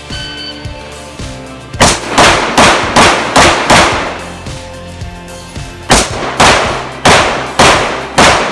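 Rapid pistol fire from an Open-division Glock 17 in 9mm major: a string of about six shots at roughly two and a half a second, a pause of about a second and a half, then a second string of about seven shots.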